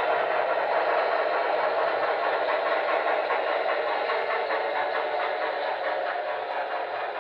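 HO-scale Broadway Limited N&W Y6b model steam locomotive running with its Paragon 3 onboard sound, together with a long train of freight cars rolling on the track. The sound is steady and grows fainter near the end.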